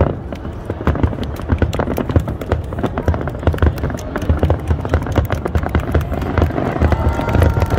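Fireworks display heard from a distance: a dense, irregular run of crackling pops over low booms.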